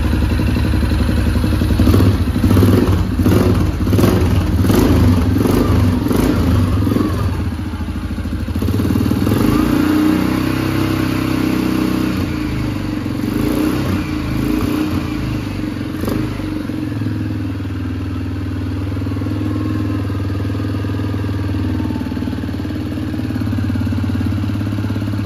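Suzuki KingQuad 750's single-cylinder four-stroke engine running just after its first start following a rebuild, pulsing unevenly for the first several seconds and then settling into a steady idle. It started very easily and, to its owner, sounds good.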